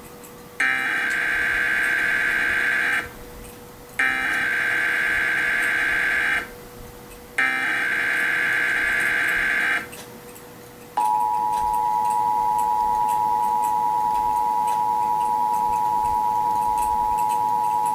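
Emergency Alert System test tones: three bursts of SAME header data, each about two and a half seconds of harsh buzzing warble with short gaps between them. About eleven seconds in, the steady two-tone EAS attention signal starts.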